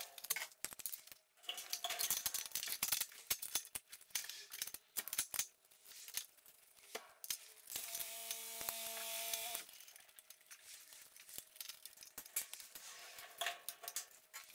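A screwdriver and small metal fasteners giving irregular clicks, taps and scrapes as bolts are worked on a motorcycle's aluminium sump guard. A steady whir runs for about two seconds near the middle.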